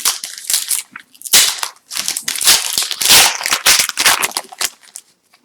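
Foil trading-card pack wrapper crinkling and tearing as it is ripped open and handled, a dense run of irregular crackles that is loudest in the middle and stops shortly before the end.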